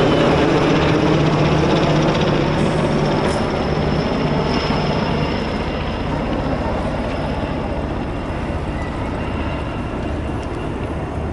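NH90 military helicopter flying overhead, its rotor and turbine noise fading steadily as it moves away.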